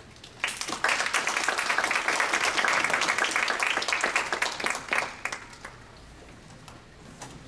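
Audience applauding, starting about half a second in and dying away after about five seconds.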